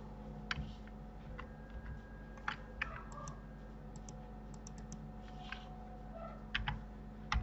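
Clicks of a computer mouse and keyboard as the user shift-clicks to select, about eight short sharp clicks at uneven intervals, the loudest near the end, over a faint steady hum.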